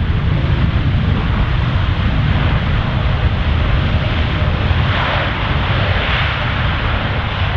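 Airbus A350-900's Rolls-Royce Trent XWB engines in reverse thrust during the landing roll on a wet runway: a loud, steady jet roar with a deep rumble and the hiss of water spray, the hiss swelling about five seconds in.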